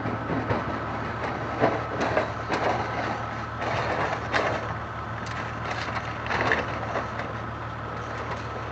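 Tractor rolling over down a bank: a run of crunching, cracking impacts as the cab and body tumble and hit the ground, over a steady low drone.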